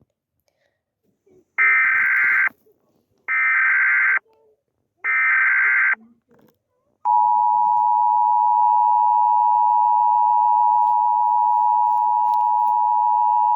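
Emergency Alert System SAME header: three short bursts of data tones, about a second each. About seven seconds in comes the steady two-tone EAS attention signal (853 and 960 Hz), which holds.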